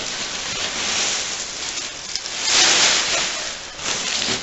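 Packing material rustling and crinkling in a cardboard box as it is pulled aside, with a louder rush about two and a half seconds in.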